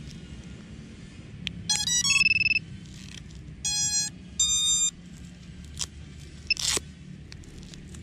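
FPV freestyle quadcopter's ESCs sounding their power-on tune through the brushless motors as the LiPo battery is plugged in: a quick rising run of tones about two seconds in, then two longer beeps as the ESCs arm. A sharp click near the end.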